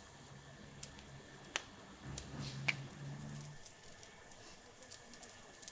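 A few sharp crackles, about a second apart, from the fire under a spit-roasting whole pig, over a faint low hum that stops about two-thirds of the way through.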